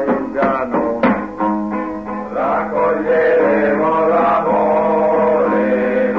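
Song with acoustic guitar strumming and improvised drums. Men's voices come in singing held notes about two and a half seconds in.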